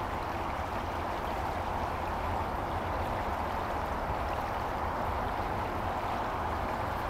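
Shallow creek water running over a gravel and cobble bed: a steady, even rush of flowing water.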